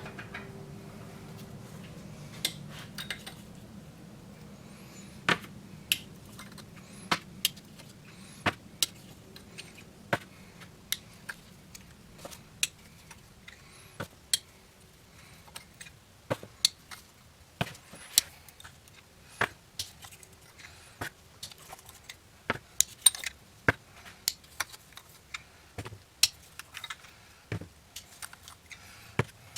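Sharp metallic clinks and clicks at irregular intervals, about one or two a second, as tools and parts are handled while the camshafts and bucket lifters are taken out of a Subaru EJ20 cylinder head.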